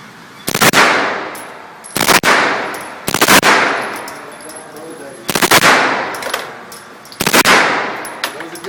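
M4 carbine firing on full automatic in five short bursts of a few rounds each, spaced a second or two apart, each burst trailing off in a long echo.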